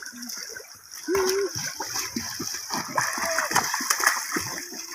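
Children's legs kicking and slapping the water as they swim face down in shallow seawater, an irregular run of splashes.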